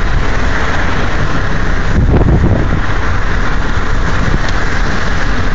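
Steady, loud road and wind noise of a car driving along, heard from inside the car.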